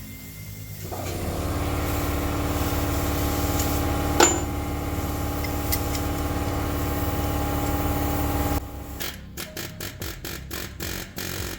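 Pneumatic air hammer with a chisel bit, hammering at a lower ball joint to drive it out. It runs steadily for several seconds with a sharp clack about four seconds in, then comes in short stop-start bursts near the end.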